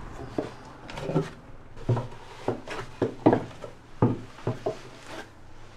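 Footsteps and knocks of shoes on a catamaran's companionway steps while climbing down into the hull: a string of irregular knocks and thumps, loudest about three seconds in.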